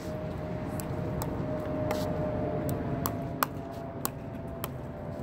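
Pickleball paddles and the hard plastic ball popping in a soft dinking rally: short sharp pops every half second to a second as the ball is struck and bounces on the court, the loudest about three and a half seconds in.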